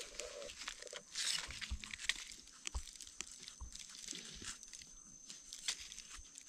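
Small knife blade scraping and prying in dry soil and leaf litter, with scattered soft scratches and clicks and a brief louder rustle about a second in, as an egg-stage mushroom is dug out by hand.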